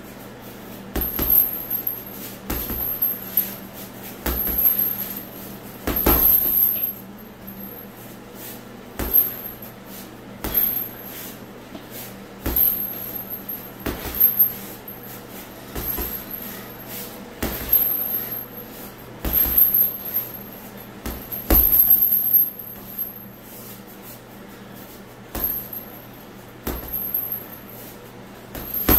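Boxing-gloved punches hitting a heavy punching bag in quick bunches of two or three thuds (double jabs and combinations), a bunch every couple of seconds, over a steady low hum.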